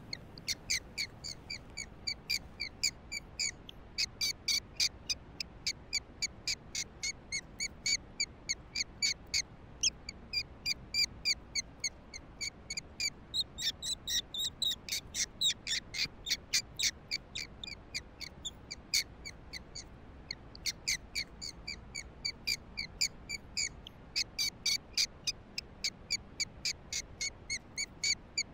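Rapid, steady series of short high squeaking calls, about four to five a second, from a predator call playing a distress sound to lure the coyote in.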